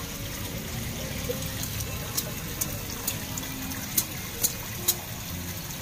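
Pond water splashing and churning as a crowd of tilapia jostles at the surface, with about six sharp pops or smacks in the second half.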